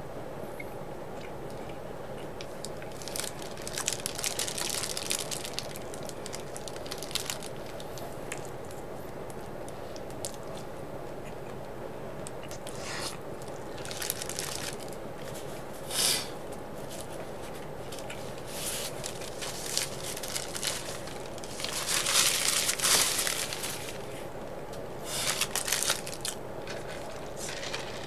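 Eating at a table: irregular crinkling and crunching of paper food wrapping and food, in short scattered bursts with the loudest cluster about four-fifths of the way through, over a faint steady hum.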